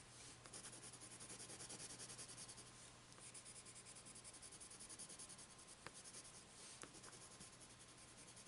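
Faint scratching of a Prismacolor Premier coloured pencil shading on paper in quick, rapid back-and-forth strokes, with a couple of light clicks about six and seven seconds in.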